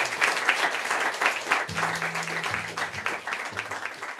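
Audience applauding, the clapping gradually dying down, with a few low notes sounding briefly underneath about halfway through.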